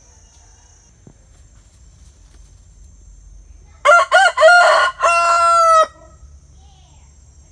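A rooster crows once, loudly, about four seconds in: a cock-a-doodle-doo of about two seconds, a few short choppy notes and then a long held final note.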